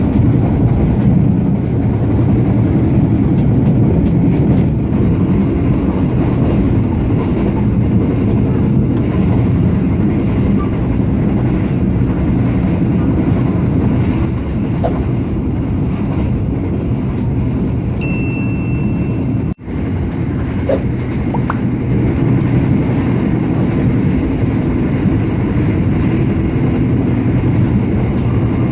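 Steady running rumble of a passenger train travelling at speed, heard from on board, with its old 1996-built coaches. A high, steady beep sounds for about a second and a half past the middle, followed by a brief dropout.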